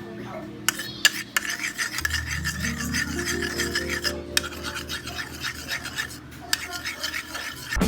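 Scratchy, rasping scrape of something being rubbed or grated, with many small clicks, starting about a second in and stopping shortly before the end; soft background music with sustained notes runs underneath.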